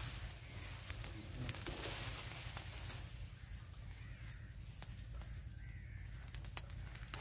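Leaves and twigs rustling and clicking under handling over a steady low rumble, with two faint bird calls in the middle.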